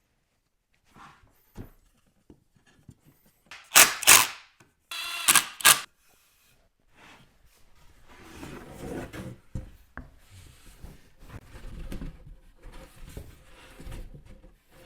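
Workshop handling of wood pieces: a few light clicks, two sharp knocks about four seconds in, a short buzz just after, then a long stretch of rubbing and shuffling of wood.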